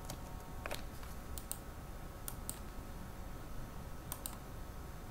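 A few soft clicks at a computer, several in quick pairs, over a faint steady hum.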